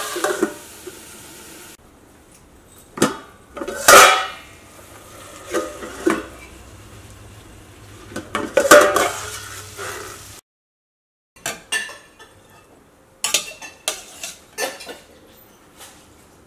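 A steel plate clanking against a stainless steel pan as it is set on as a lid, with the loudest clanks about four and nine seconds in. After a short break, a spoon scrapes and clinks while stir-fried vegetables are served from the pan into a ceramic bowl.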